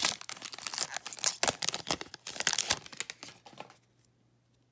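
Foil wrapper of a Pokémon trading-card booster pack being torn open and crinkled by hand, a dense run of crackles that dies away about three and a half seconds in.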